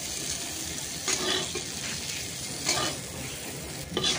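Hot oil sizzling in a steel kadai as fried cauliflower florets are scooped out with a metal slotted spoon, with three short strokes of the spoon in the pan: about a second in, near three seconds, and near the end.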